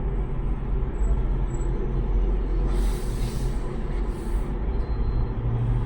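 Steady low background rumble, with two short hisses about three and four seconds in.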